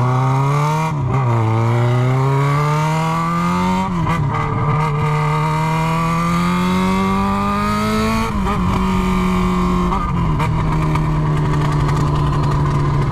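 Yamaha XJ6 inline-four engine with its exhaust end tip removed, running open-piped under hard acceleration. Its pitch climbs and drops sharply at three upshifts, about one, four and eight seconds in, then holds steady near the end.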